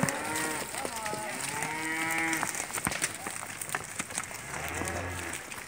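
Cattle in a moving herd mooing several times: a held call about two seconds in and a low moo near the end, with a few sharp clicks and knocks between them.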